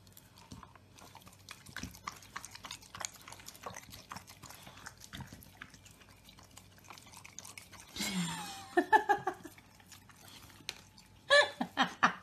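Chow chow licking Greek yogurt off a torn lid, a run of small wet licking and smacking clicks. About eight seconds in and again near the end come short vocal sounds that rise and fall in pitch, the loudest sounds here.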